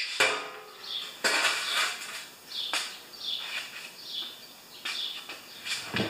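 Metal parts and tools clinking and clattering in a shallow metal tray on a workbench, with a few sharp knocks spaced a second or more apart.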